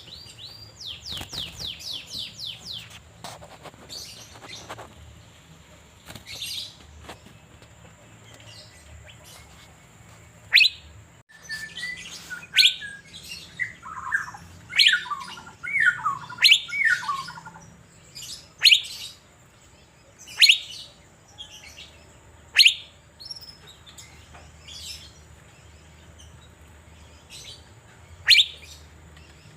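Asian fairy-bluebird (cucak biru) singing: a quick run of rising chirps at the start, then loud, sharp whistled notes falling in pitch, repeated about every two seconds, with a tumble of lower falling notes in the middle.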